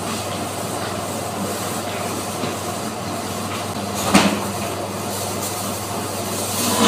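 Steady machine hum, with a single knock about four seconds in while a large kingfish is handled at a band saw.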